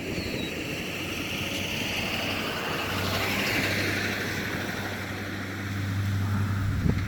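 Nelson P200 big-gun sprinkler's water jet rushing and hissing as it sweeps, swelling about halfway through. A steady low hum joins about three seconds in, and wind buffets the microphone.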